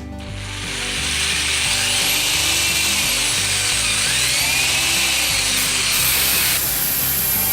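A power tool running steadily with a hissing, high whine that rises and falls in pitch, over background music; the hiss cuts off sharply near the end.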